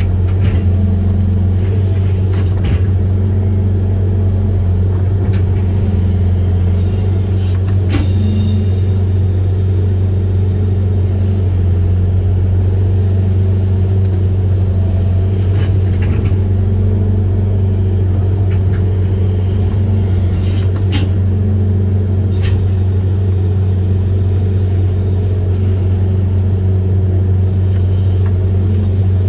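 Amphibious excavator's diesel engine running steadily with a deep drone, with a few sharp knocks from the machine working.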